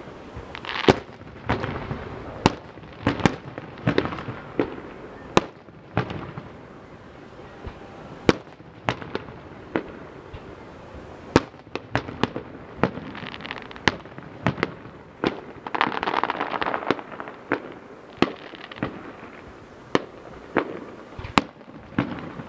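Aerial fireworks shells bursting: a rapid, irregular series of sharp bangs, several a second at times, over a continuous noisy background that thickens about 16 seconds in.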